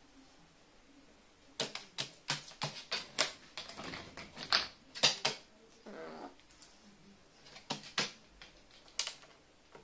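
Carrion crow pecking at food in a small plastic wheel feeder: a fast run of sharp beak taps and clicks, then a few more taps near the end. A short, soft call comes about six seconds in.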